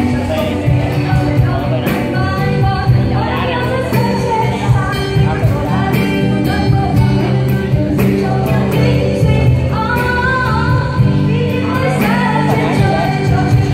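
A song: singing over instrumental accompaniment, with held low notes under the melody.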